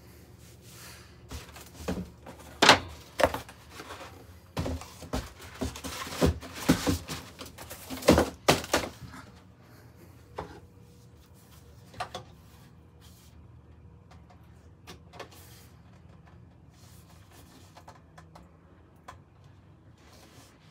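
Handling noises from bookshelf speaker cabinets being moved and set down on a wooden shelf: a quick run of knocks and thumps in the first nine seconds or so, then a few lighter, scattered knocks.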